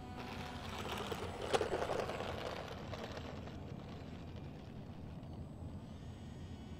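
Small electric-ducted-fan RC jets (64 mm EDF F-18 models) passing by, a rushing fan noise that swells, peaks about one and a half seconds in and fades away within a few seconds.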